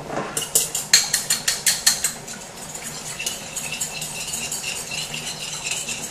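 Spoon clinking and scraping against a ceramic bowl while a soy-sauce and cornstarch mixture is stirred. Quick sharp clinks for the first three seconds or so, then softer, steadier stirring.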